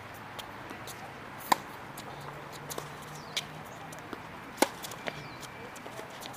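Tennis ball struck hard by a racket twice, about three seconds apart, with several fainter knocks in between.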